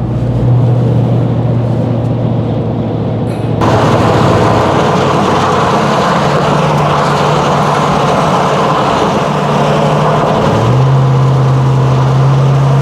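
Pickup truck driving at highway speed, heard from inside the cab: a steady low engine drone under tyre and wind noise. About three and a half seconds in, the road noise jumps louder and hissier, and near the end the engine drone steps to a slightly different pitch.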